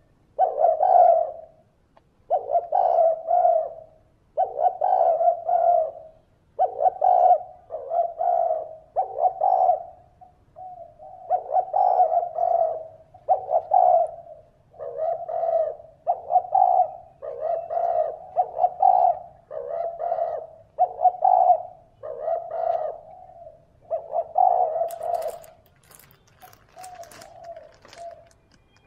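A spotted dove cooing over and over in short phrases, about one every second and a half, with a few crackling clicks near the end.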